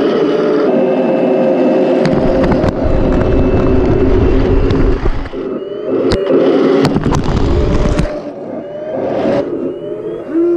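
Heng Long 1/16 scale RC M1A2 Abrams tank running: a steady engine hum, which is the simulated gas-turbine sound from its built-in sound unit, with a loud low rumble in two stretches as it drives on its zinc gearbox and tracks. Sharp clicks and a few short rising whines come in between.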